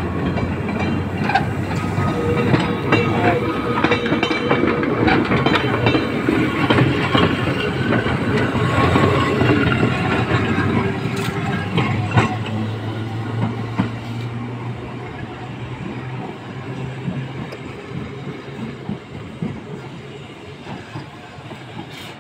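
Manx Electric Railway tram running along the track, its wheels clattering over rail joints and points. It is loudest as it draws close, then fades as it moves away.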